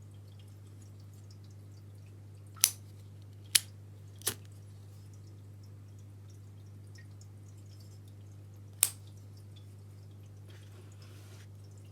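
Four sharp clicks from handling a vintage gold-plated Cartier lighter: three within about two seconds, then one more about four seconds later, over a steady low hum.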